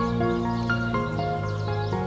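Background music: an instrumental piece with held low notes under a slow melody of changing notes.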